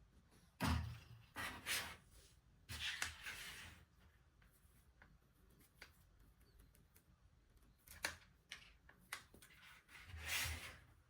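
Handling noises: scattered rubs and soft knocks, a few close together near the start, a quiet stretch in the middle, then more near the end.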